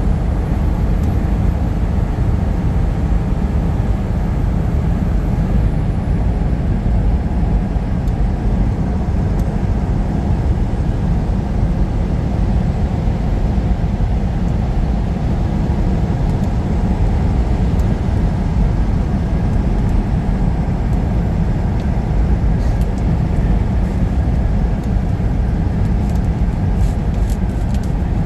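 Steady low rumble of a semi truck's engine and tyres on a wet, slushy highway, heard from inside the cab, with a few faint ticks near the end.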